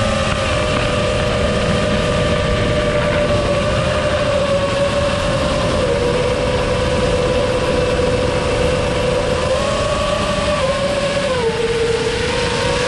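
Brushless motors of an iFlight Nazgul5 V2 5-inch FPV quadcopter whining in flight, the pitch stepping up and down with throttle changes several times, over a steady low rush of wind noise.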